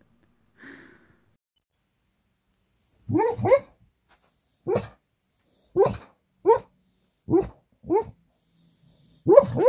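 A sleeping dog giving short woofs in its sleep, about nine of them, starting about three seconds in and spaced irregularly.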